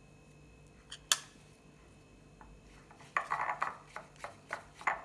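Spoon stirring and scraping a thick Vaseline-based cream in a ceramic mug: a sharp clink about a second in, then from about three seconds in a run of quick scrapes and knocks against the mug, about three a second.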